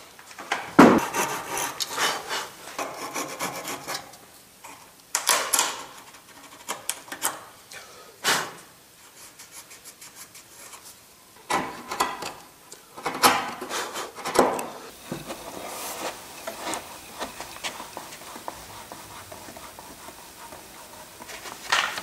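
Wood chisel paring and scraping waste out of a dovetail socket in pine: a knock about a second in, then uneven runs of scraping strokes with short pauses between them.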